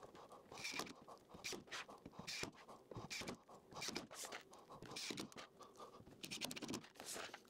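Faint, irregular scratching and rustling of hands handling screws and a cordless drill on an MDF board, with a few light knocks. The drill is not running.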